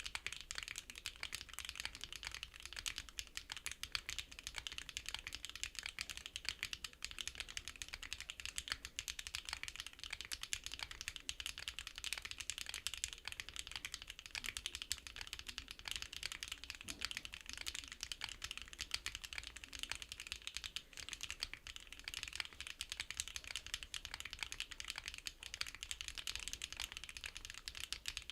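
Continuous fast typing on a custom NEO65 mechanical keyboard with HMX Jammy linear switches: a dense, even run of key clicks.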